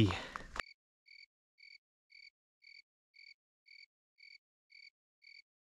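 An animal calling at night: one short high-pitched note repeated evenly, about twice a second, starting about half a second in.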